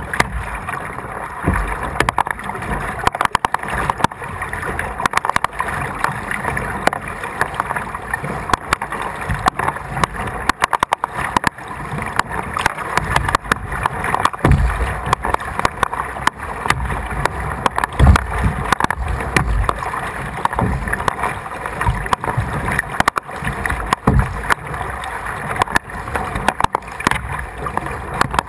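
Kayak being paddled through floodwater: paddle splashes and water sloshing against the hull, with many irregular knocks and a few low thumps.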